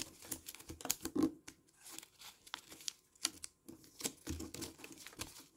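Coloured origami paper being folded and pressed into creases by hand: faint, irregular crinkles and small crackling taps.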